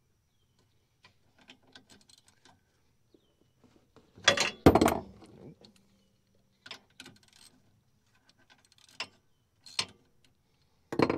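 Socket ratchet clicking and clinking against the 19 mm fill plug of a Kawasaki Teryx rear differential, with a loud metallic clank about four to five seconds in and a few sharper knocks near the end.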